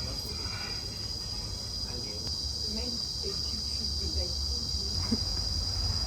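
Crickets trilling in a steady, unbroken high-pitched drone, with a faint low rumble beneath.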